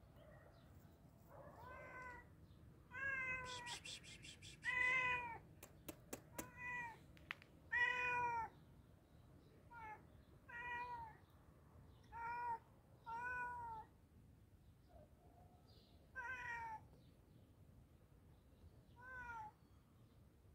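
Grey tabby cat meowing again and again, about eleven short calls, each rising and falling in pitch, with pauses of a second or more between them.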